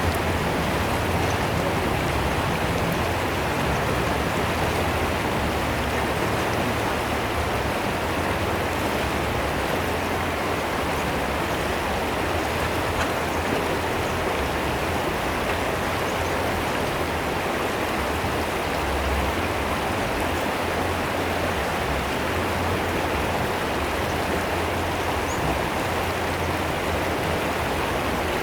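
River water rushing and splashing in a steady, unbroken flow.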